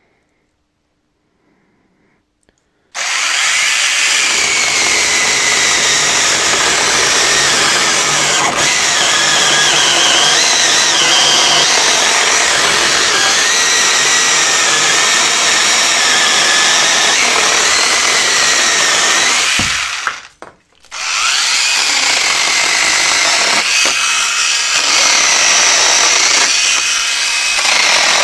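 Hychika 18 V one-handed cordless chainsaw with a brushless motor cutting wood. The motor's whine dips and rises as the chain bites. It starts about three seconds in, breaks off briefly about two-thirds of the way through, then runs again.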